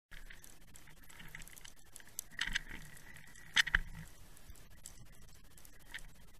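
Underwater sound heard through a Waterwolf fishing camera's housing: a constant crackle of small clicks with a faint steady whistle, and two brief louder rattles of clicks and knocks about two and a half and three and a half seconds in.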